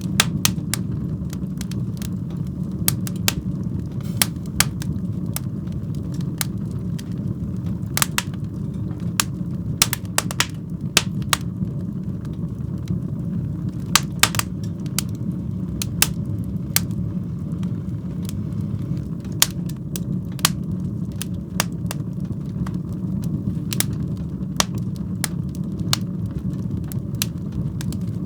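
Fire burning in a fireplace: irregular sharp crackles and pops, several a second, over a steady low roar of the flames.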